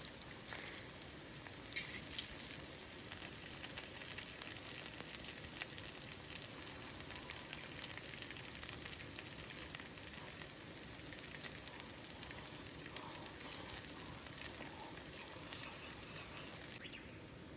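Wood campfire crackling steadily, with many small pops and ticks over a soft hiss.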